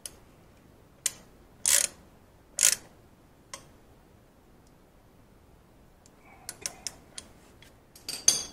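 Metal hand tools and parts clicking and clinking: a handful of separate sharp clicks in the first few seconds, then a quicker run of clicks near the end, the last with a brief metallic ring.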